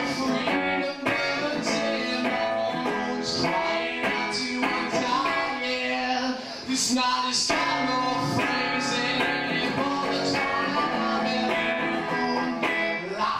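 A man singing live while strumming an electric guitar: a rock song with steady strummed chords under the sung melody.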